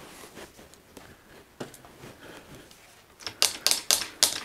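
Faint handling ticks, then near the end a quick, even run of sharp mechanical clicks, about four a second, from a mountain bicycle being worked on.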